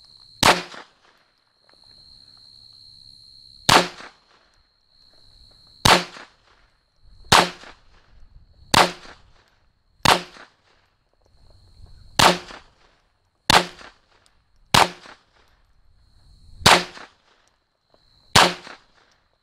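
Eleven single shots from a Smith & Wesson M&P 22 Compact .22 LR pistol, fired at a slow, steady pace about one to two seconds apart, emptying a chamber-plus-ten-round load.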